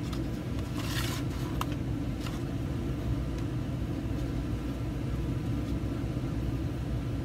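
Steady low background rumble, with a few soft, brief scrapes about a second in and again around two seconds.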